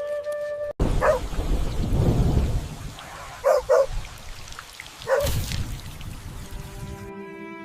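Heavy rain with a low rumble of thunder, and a dog giving short cries four times. The rain cuts in suddenly after a brief stretch of music, and music tones return near the end.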